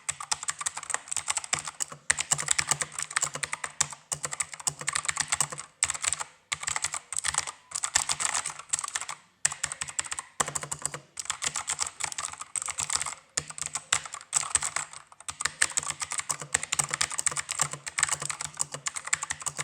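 Fast typing on a Keychron K2 mechanical keyboard with clicky blue switches: a dense run of sharp key clicks, broken by short pauses a few times.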